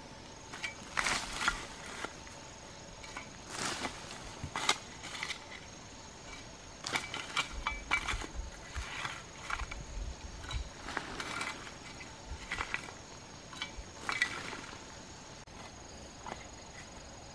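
A shovel digging into dry, loose earth: irregular scrapes and chops of the blade into the soil, a stroke every second or so.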